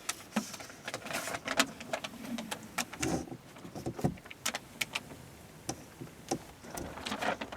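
Clear acrylic (plexiglass) booth panels being handled: irregular clicks, taps and light knocks, with brief crackling of plastic.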